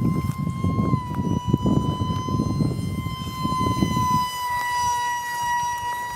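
High, steady whine of the Great Planes F-86 Sabre micro jet's brushless electric ducted fan in flight, its pitch dipping slightly about a second in and then holding. Under it, a low rumbling noise stops about four seconds in.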